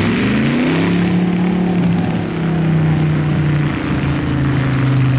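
A 1945 John Deere A tractor's two-cylinder engine pulling away under throttle. Its pitch rises through the first second, then runs steadily and sags slightly toward the end.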